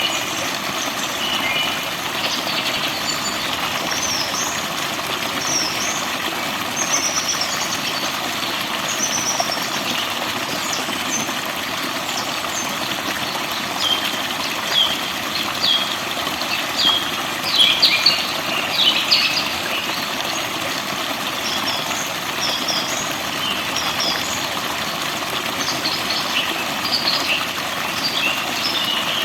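Steady rush of flowing water with forest birds chirping and singing over it; a flurry of louder, quick chirps comes about halfway through.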